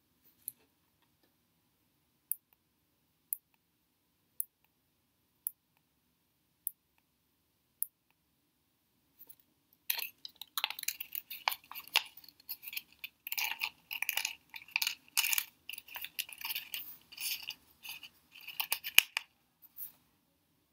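Faint, sharp ticks about once a second for the first eight seconds, then about ten seconds of close handling noise: a small electronic pendant board and its plastic case rustling and clattering against paper.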